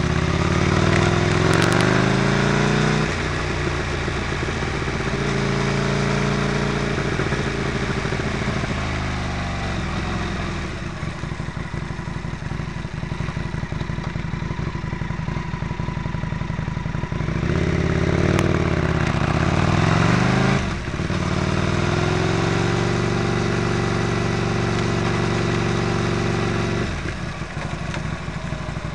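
Motorcycle engine under way, accelerating several times with its note climbing through the revs and dropping at each change, easing off for a spell about a third of the way in. Wind rushes over the microphone throughout.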